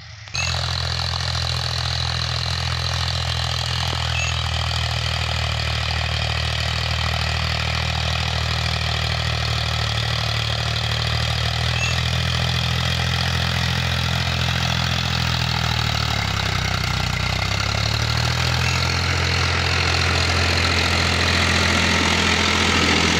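Powertrac 439 Plus tractor's three-cylinder diesel engine running steadily under load, pulling a disc harrow in second high gear. The engine note dips briefly about two-thirds of the way through and grows louder toward the end as the tractor comes close.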